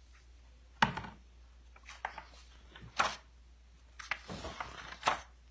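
Paper pages of a picture book being handled and turned: a few sharp taps, with a rustle of paper near the end.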